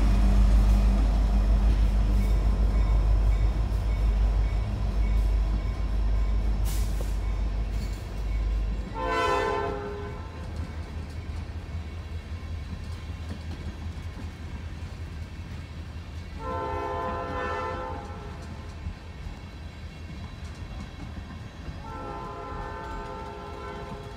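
Diesel-hauled freight train rolling past: the locomotive's heavy engine rumble fades over the first eight seconds, leaving the steady rumble of tank cars on the rails. The locomotive's air horn sounds three times from down the line, about nine seconds in, around seventeen seconds, and near the end.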